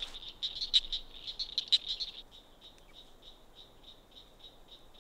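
Cricket frogs calling: rapid, clicking calls that are loud and dense for the first two seconds, then fainter and steadier at about four clicks a second.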